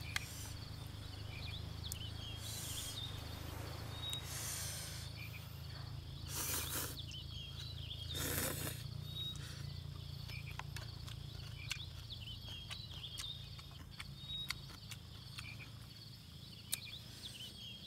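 Instant-noodle salad eaten with chopsticks: noodles slurped in four short noisy bursts over the first half, with sharp clicks of chopsticks on the bowl. Small chirping calls and a steady low hum run underneath.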